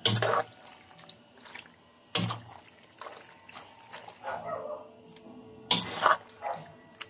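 A spatula stirring thick, creamy penne pasta in a wok: wet squelching and scraping against the pan in irregular strokes, a few of them louder.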